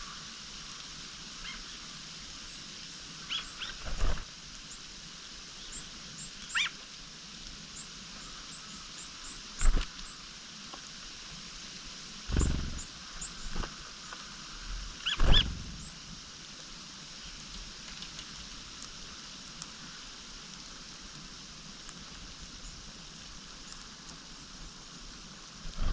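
Small wild songbirds giving short, high chirps and calls, scattered through the first half and sparse later. Four dull thumps stand out louder than the calls.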